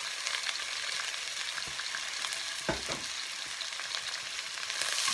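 Chicken frying in hot oil in a pan: a steady sizzle with fine crackles, and a single knock about two and a half seconds in.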